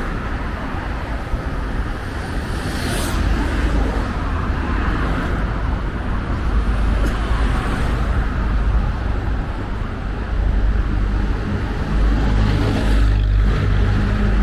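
Road traffic noise: a steady rumble of cars and heavier vehicles on a busy road, with a vehicle passing close about three seconds in and another near the end.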